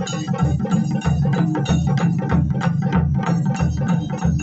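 Taiko drum ensemble playing: rapid, even stick strokes on Japanese drums, with a deep drum booming about twice a second underneath.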